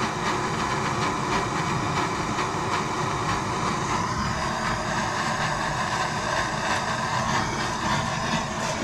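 Plumber's gas torch flame running steadily with an even hiss, heating a copper pipe fitting so the solder is drawn into the joint.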